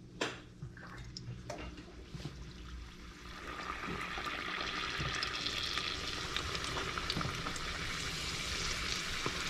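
Egg rolls frying in hot oil: a few light knocks, then a steady sizzle that swells up about three and a half seconds in and holds.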